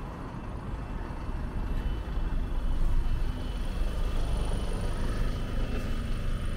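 Double-decker bus engine running as the bus drives slowly past at close range: a low rumble that swells over the first couple of seconds and then holds steady.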